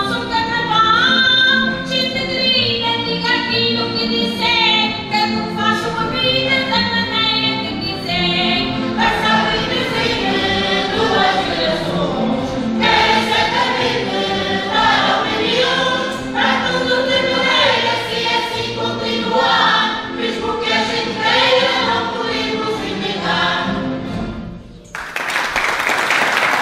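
A carnival bailinho group singing together in chorus with instrumental accompaniment. The song ends about 25 seconds in and the audience breaks into applause.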